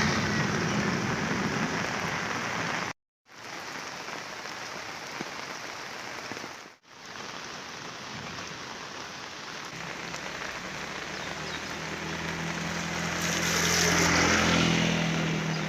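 Heavy rain pouring steadily. The sound cuts out briefly about three seconds in and dips again near seven seconds. In the second half a vehicle's low engine hum grows beneath the rain.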